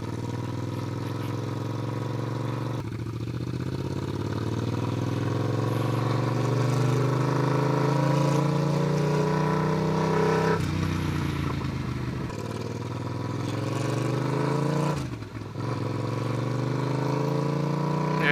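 Yamaha MT-07's parallel-twin engine running loud with its muffler removed (straight piped), heard while riding. The exhaust note climbs steadily in pitch as the bike accelerates, with brief drops about three, ten and fifteen seconds in.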